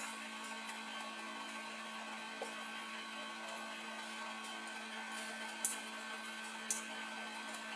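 Steady electrical hum with a faint hiss, and two short sharp clicks about a second apart in the second half from small plastic camera parts being handled.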